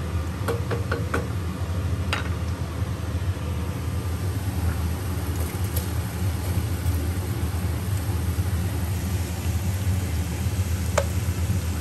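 A steady low mechanical hum in a kitchen, with a few light clinks, one about two seconds in and another near the end.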